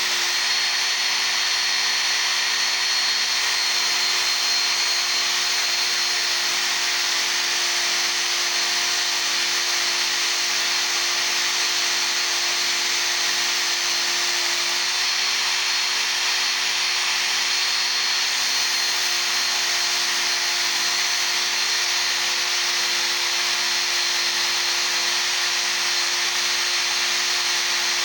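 Work Sharp Ken Onion Edition belt sharpener running with an abrasive belt grinding a steel chisel edge: a steady motor whir over a continuous hiss.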